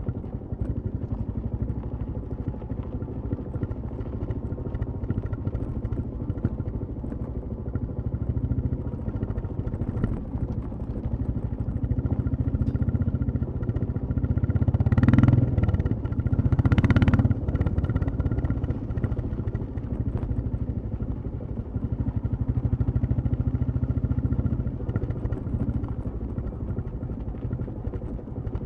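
Royal Enfield Classic 350's single-cylinder engine and exhaust while riding, running steadily, with two louder bursts of throttle about halfway through.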